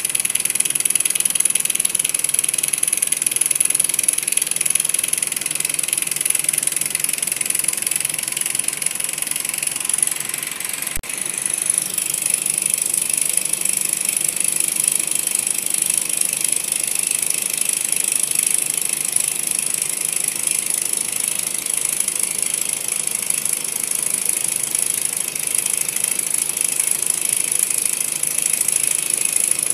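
Small model Stirling hot-air engine running steadily, its linkages and piston giving a continuous light mechanical rattle. There is a brief dip about eleven seconds in.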